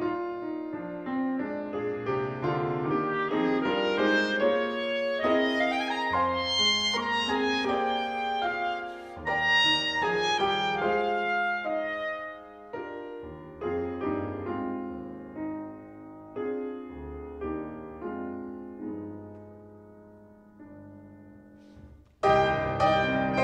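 Grand piano playing alone in a classical clarinet-and-piano piece, with a quick rising run about six seconds in, then growing sparser and quieter. Near the end the clarinet comes in with the piano, suddenly loud.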